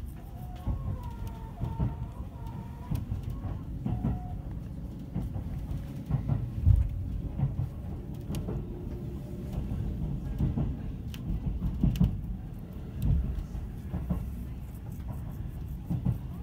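Cabin noise of a 373-series limited express electric train running on the line: a steady low rumble with irregular clicks and knocks from the wheels on the rails. A faint wavering tone is heard in the first few seconds.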